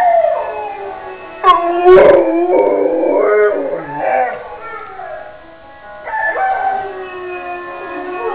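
Bernese mountain dog howling, several long howls that slide up and down in pitch, the loudest starting sharply about one and a half seconds in.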